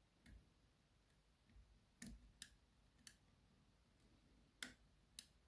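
Faint, sharp metallic clicks, about six spread irregularly, the loudest about four and a half seconds in: a steel hook pick working the pin tumblers of a DOM RS Sigma euro cylinder under tension, pins clicking as they are lifted and set.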